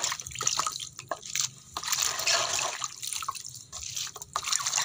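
Water splashing and sloshing in a plastic basin as shredded cabbage is stirred and squeezed by hand to wash it, in irregular splashes.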